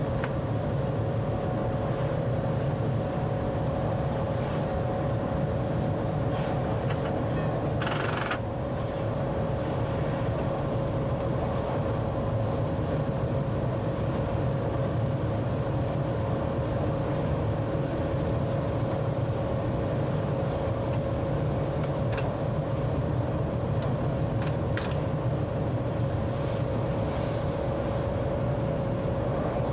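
An electric train running steadily, heard from the driver's cab: a deep rumble with a constant whine over it. A short hiss about eight seconds in, and a few faint clicks near the end.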